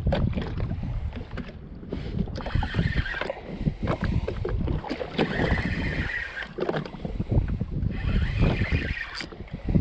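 Spinning reel being cranked in short bursts of winding while reeling in a hooked fish, over heavy wind buffeting on the microphone and water lapping.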